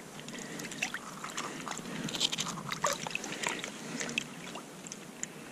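Scattered small clicks and scrapes with light splashing of water: fishing gear and a caught fish being handled at a hole in the ice.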